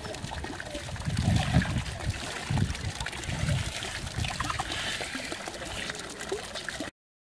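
Pond water sloshing and trickling as capybaras swim and roll over one another, with a few dull low splashes in the first half. The sound stops abruptly near the end.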